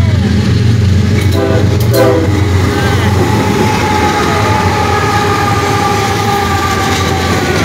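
CSX freight train's diesel locomotives passing close by, engines running with a steady low hum. A few short tones sound about a second and a half in, then a steady higher tone is held through the rest.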